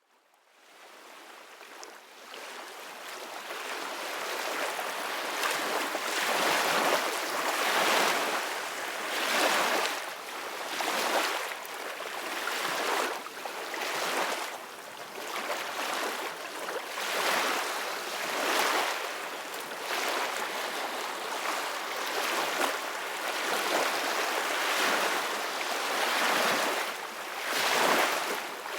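Ocean waves washing onto the shore, fading in from silence over the first few seconds, then swelling and ebbing every couple of seconds.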